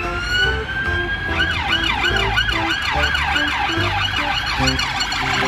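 Police car siren: a rising wail that switches about a second in to a fast yelp, about two to three sweeps a second.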